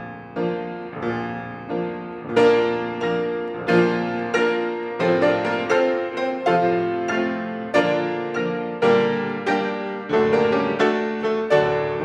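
Grand piano played in full chords, struck about twice a second, each ringing and fading before the next.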